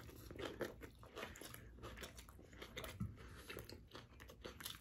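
A person biting into and chewing a beef short rib taco and a carrot slice close to the microphone: quiet, irregular crunching and chewing.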